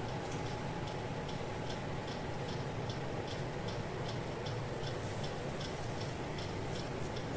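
Panasonic 1.5-ton inverter split AC indoor unit running steadily, a even airflow hiss with a faint steady hum. A regular light ticking, about two to three ticks a second, runs through it.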